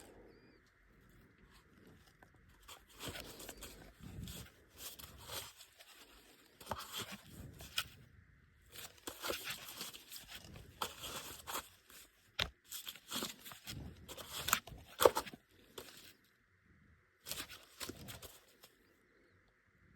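Irregular rustling, crinkling and tapping handling noises, with sharp clicks, the loudest about fifteen seconds in.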